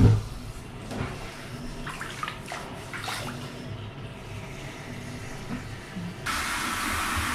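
Light water sloshing and dripping in a filled bathtub as a Labrador soaks, with a few soft splashes in the first three seconds. About six seconds in, a steady rushing hiss starts abruptly.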